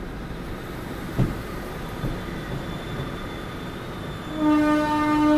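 Steady hiss of rain over a railway platform, with a single knock about a second in. Near the end a train horn starts up and becomes the loudest sound: one steady, held blast.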